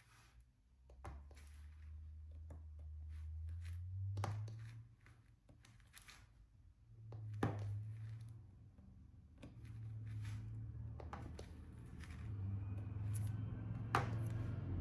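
Scattered small clicks and taps of a diamond painting pen picking up resin drills and pressing them onto the canvas, with a few sharper taps, over a low hum.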